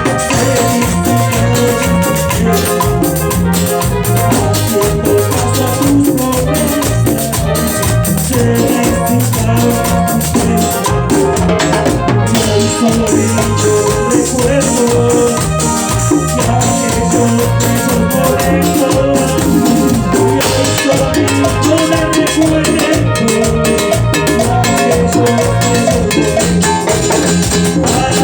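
Latin dance band playing an instrumental chichera-style passage: melody instruments over drum kit and percussion keeping a steady dance beat.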